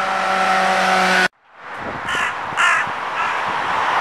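Street traffic with a coach bus driving by, a steady engine hum with several held tones, cuts off abruptly about a second in. Then the street noise fades back in and a crow caws three times, the last caw weaker.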